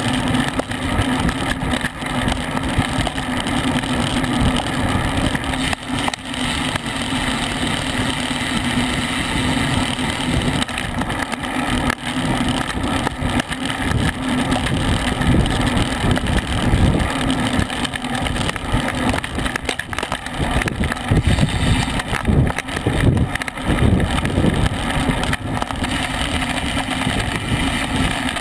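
Wind rushing and buffeting over the microphone of a camera mounted on a racing bicycle moving at about 20 to 25 mph, with a steady low hum under it and irregular gusty rumbles, heavier in the second half.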